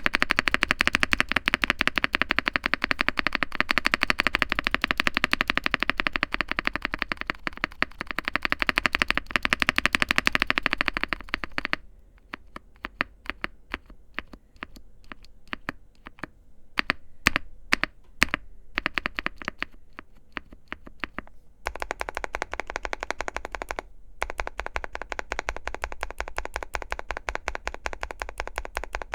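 Typing on a QK65 mechanical keyboard with a POM plate, lubed Gazzew Boba U4T tactile switches and PBT keycaps. There are fast, continuous keystrokes at first, then slower separate keypresses from about twelve seconds in, and fast typing again for the last seven seconds or so.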